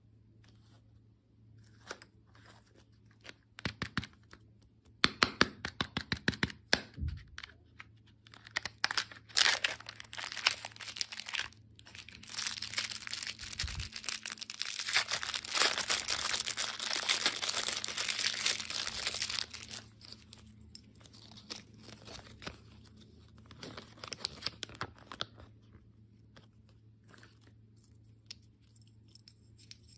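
Plastic candy packaging being handled and torn open: runs of sharp crackling clicks, then a long stretch of steady crinkling and tearing, then a few more crackles near the end.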